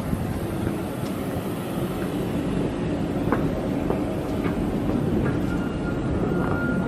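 Steady low rumbling background noise with a few light footsteps climbing outdoor stairs. A faint thin whine comes in near the end.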